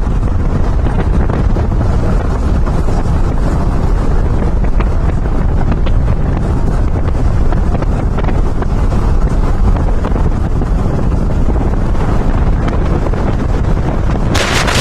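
Heavy wind buffeting the microphone of a moving Jeep: a loud, steady rumbling roar with no let-up. Just before the end a sharper, higher hiss joins in.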